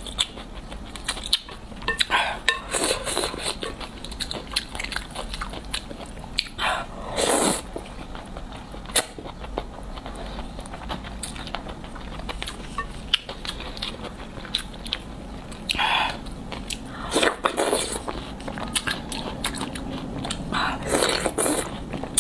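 Close-miked eating of cold noodles in soup: steady chewing and wet mouth clicks, with several louder slurps scattered through, the loudest about seven seconds in.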